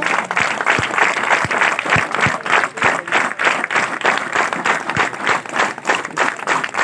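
A crowd clapping in a steady, even rhythm.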